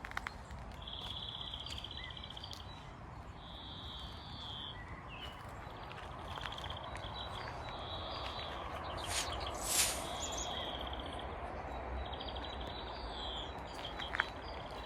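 Forest songbirds singing: short trilled phrases repeated about once a second over a steady background hiss, with one brief, louder sound just before the ten-second mark.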